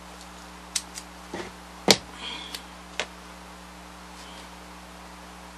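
Masking tape being pulled off its roll and torn: a few sharp snaps and ticks, the loudest about two seconds in, followed by a short rasp of tape peeling from the roll.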